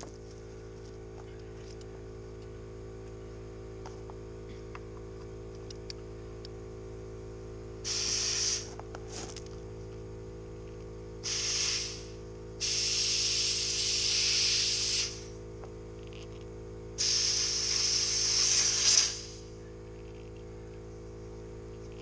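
Compressed air hissing through a tire inflator chuck into a car tire's valve stem in four bursts, the longest about two and a half seconds, as the tire is filled toward 32 psi. A steady hum runs underneath.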